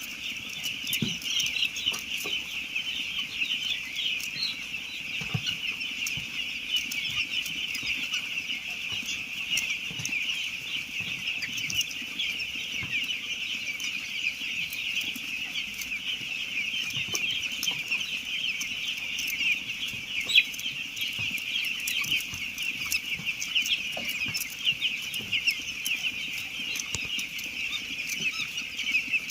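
A large flock of eight-day-old chicks peeping continuously, many high chirps overlapping at once, with one sharp knock about twenty seconds in.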